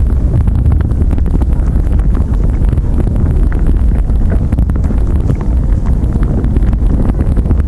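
Loud, steady low rumbling noise with constant crackling and clicks, like wind buffeting a microphone.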